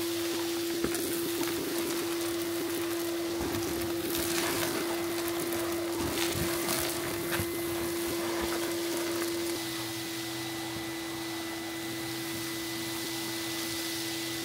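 Vacuum cleaner running through a cyclone pre-filter with a steady hum as its pipe nozzle sucks grit and dust off wooden floorboards, small debris crackling and ticking up the pipe. About nine and a half seconds in the sound drops slightly and settles to a smoother hum.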